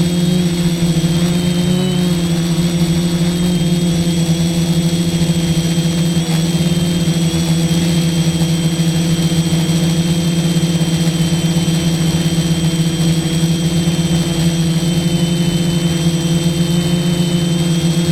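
F450 quadcopter's electric motors and propellers running steadily in flight: a constant drone with a high whine above it, its pitch wavering only slightly.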